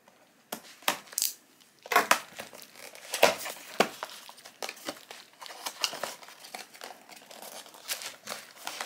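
Paperboard product box being unsealed and opened by hand: a sealing tab torn off, then the flap and lid lifted. It gives crinkling and tearing with a run of short taps and scrapes.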